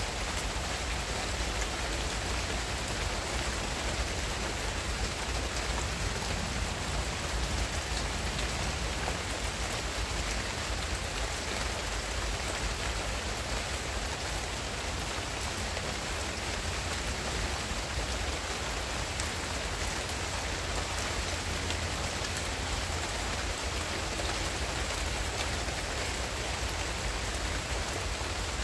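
Steady rain falling on palm and banana leaves: an even hiss with fine, scattered drop patter and a low steady rumble underneath.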